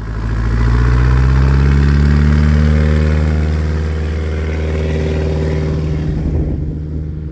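Single-engine bush plane's piston engine and propeller running as it taxis close past and away. The sound cuts in suddenly, is loudest in the first few seconds, then eases slightly as the plane moves off.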